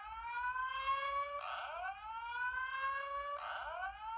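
Fire-alarm speaker strobe playing a rising whoop tone, the alert tone that opens a voice-evacuation message. Each sweep lasts about a second and a half and ends in a brief harsh burst, repeating about every two seconds.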